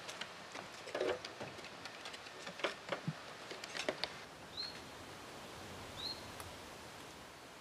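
Faint footsteps and small knocks and clicks as a corded telephone receiver is picked up and handled. A bird chirps briefly twice in the second half.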